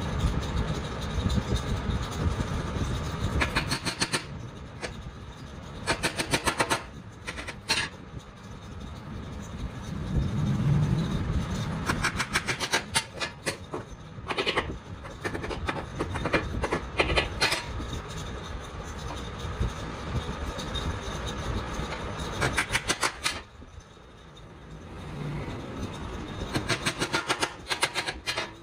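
Woodworking on a hand-made wooden box: short bursts of rapid strokes on wood, each burst about a second long and repeated every few seconds, over a steady low rumble.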